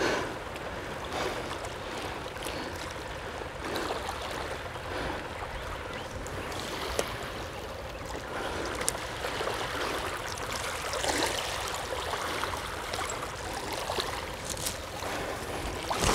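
Small waves lapping at a gravel shoreline: a steady wash of water noise with a few faint ticks of small splashes.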